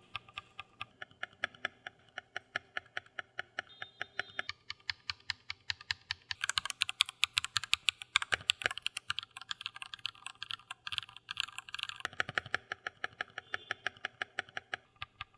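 Typing on an Amazon Basics Pro wireless 65% mechanical keyboard with linear red switches: a steady run of key clicks. It becomes faster and louder about six seconds in, then eases back about twelve seconds in.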